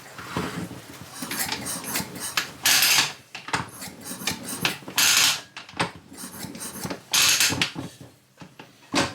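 Sachs 50/3 moped engine turned over by hand three times, about two seconds apart, each stroke giving a short hissing puff of air with metallic clicking and rattling between: the engine has compression.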